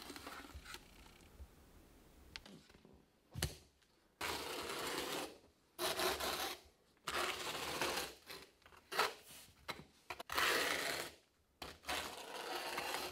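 Notched steel trowel scraping thinset mortar across a board in repeated strokes of a second or two each, starting about four seconds in after a single knock.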